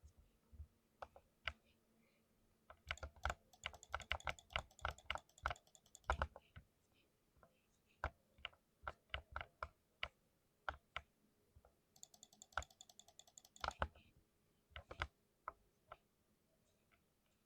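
Typing on a custom 60% mechanical keyboard: sharp key clacks in irregular runs, with a fast flurry of keystrokes a few seconds in and another past the middle, between scattered single presses.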